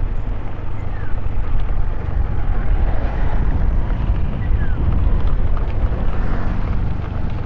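Wind rumble buffeting the microphone while riding a motor scooter, with the engine running steadily underneath.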